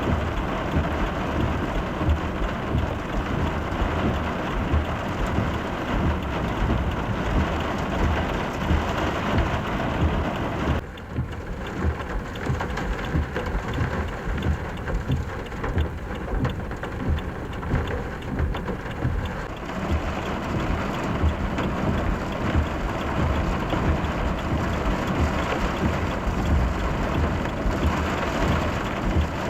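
Torrential rain pouring down in a steady, heavy downpour, with a low rumble underneath. The sound turns duller for several seconds about eleven seconds in, then comes back full.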